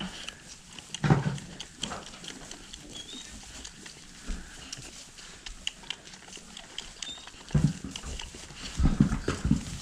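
Boer goat kid feeding from a bottle: sucking and snuffling with scattered small knocks, and a few heavier thumps about a second in and near the end.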